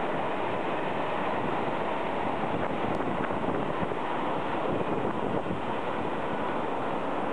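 Keio 6000 series electric train running through a subway station at speed without stopping: a steady rush of wheel and air noise from the passing cars.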